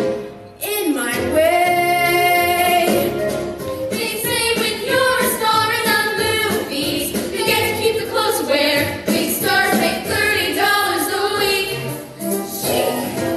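A musical theatre song: singing voices over instrumental accompaniment, with a brief break about half a second in.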